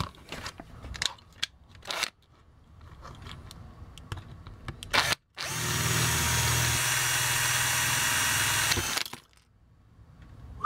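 A few light clicks, then a power drill running steadily for about three seconds as its bit drills out the rivet holding a die-cast toy car's metal base.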